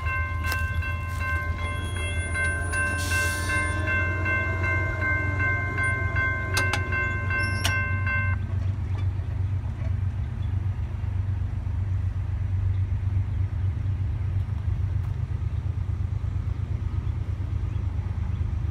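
Railroad crossing warning bell ringing steadily, then stopping suddenly about eight seconds in as the crossing gates finish lowering. A steady low rumble runs underneath.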